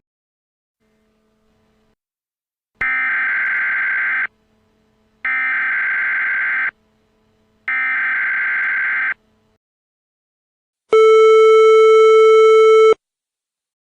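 Emergency Alert System header: three identical bursts of warbling data tones, each about a second and a half long with short gaps between them, which carry the alert's digital SAME header codes. After a pause comes a steady attention tone about two seconds long.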